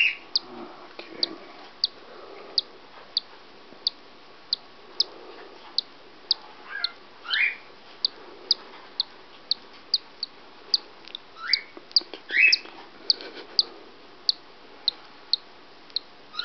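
Cockatiel chick hatching inside its cracked egg, peeping over and over in short high peeps at an even pace of about one and a half a second. A few louder rising chirps come in pairs, about seven and twelve seconds in.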